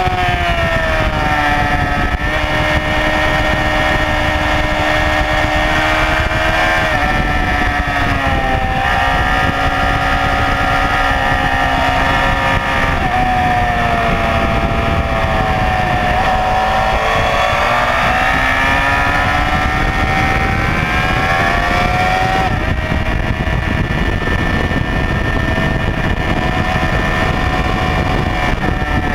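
Honda CBR954RR inline-four engine at high revs on track, heard from the bike itself with wind rush over it. The engine note steps down in the first seconds as it shifts up, sinks to its lowest a little past the middle as the bike slows for a corner, then climbs again as it accelerates out.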